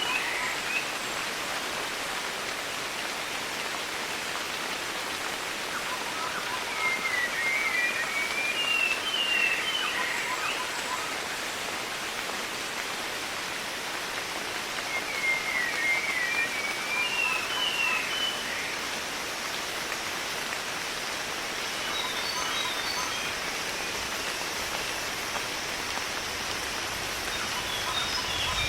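Sri Lankan rainforest ambience: a steady rain-like hiss, with a bird repeating a short phrase of quick rising and falling notes roughly every seven seconds.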